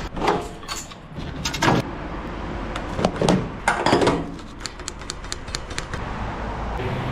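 Truck diesel tank cap being unscrewed and the fuel pump nozzle knocking into the metal tank's filler neck: a run of metallic clinks and knocks, followed by a stretch of light, quick clicking, over a steady low rumble.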